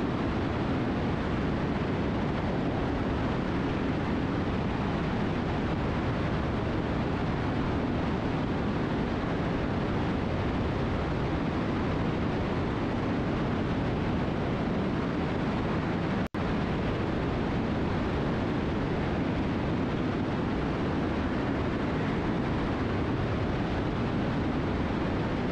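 Steady in-cabin drone of a Cessna T310R twin in level cruise: its two turbocharged Continental six-cylinder engines and propellers, heard inside the cockpit. The sound cuts out for an instant about two-thirds of the way through.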